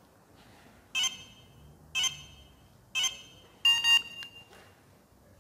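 Pandora Elite pager remote beeping as the engine remote-start command is sent: three short high beeps about a second apart, then a longer beep of a different tone.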